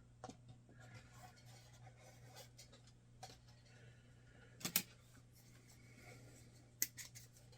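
Faint scraping and handling noises as a freshly glued wooden box is worked by hand, with two sharp clicks, one about halfway through and one near the end, over a low steady hum.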